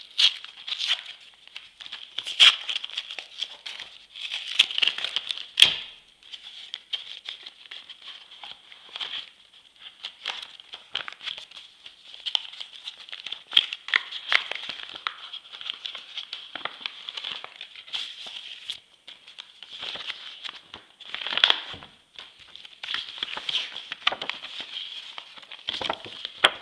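Paper and plastic packaging crinkling and rustling as it is handled, in irregular crackles with a few sharper, louder crackles.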